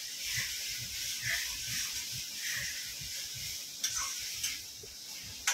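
Oil sizzling in a kadhai on a gas stove as tomatoes fry and are stirred with a spoon: a steady hiss with soft, repeated scraping strokes, and a few sharp clicks of the spoon against the pan near the end.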